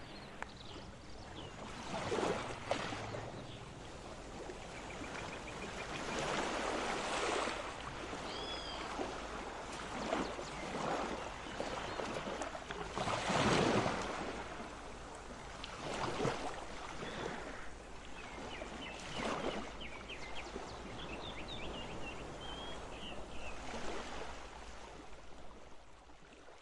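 Background ambience: a steady noisy hiss that swells and fades every few seconds, with a few faint high chirps about a third of the way in and a run of quick chirps near the end.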